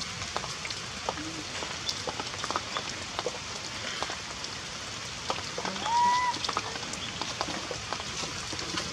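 Heavy rain falling steadily, with many sharp drips and ticks. About six seconds in there is one short high call that rises and then holds its pitch.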